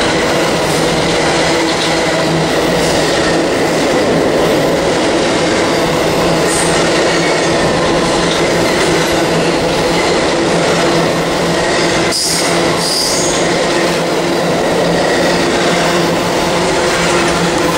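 Amtrak Auto Train's enclosed autorack cars rolling past close by: a loud, steady rumble of steel wheels on rail with a steady hum running through it, and a single sharp knock about twelve seconds in.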